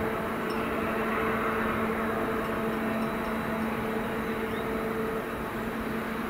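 Distant DB Class 232 'Ludmilla' diesel locomotive approaching under load with a long train, its big V16 diesel engine giving a steady drone with a constant low hum.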